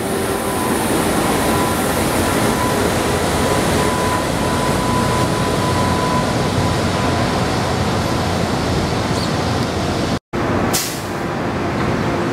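Budd-built Miami Metrorail rapid transit car running, a steady rumble with a thin whine that fades out about halfway through. Near the end the sound breaks off for a moment, followed by a short hiss.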